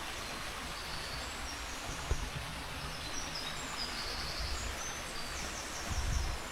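Small birds chirping and twittering over the steady rush of flowing water, with a quick run of high chirps near the end. There is a brief low thump about two seconds in.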